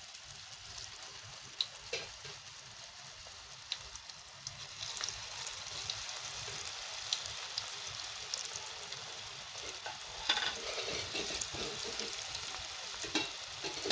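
Cornflour-battered cauliflower pieces deep-frying in hot oil in a steel kadai: a steady sizzle that grows louder as more pieces go into the oil, with a few sharp clicks.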